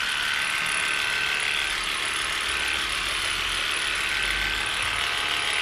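Cordless electric dog clippers running steadily, shaving the fur on a puppy's neck and chest.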